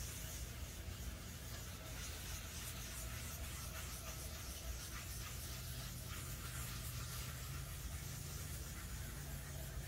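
Soft, steady rubbing of a folded oil-soaked pad wiping mineral oil across the end grain of a wenge cutting board, over a faint low room hum.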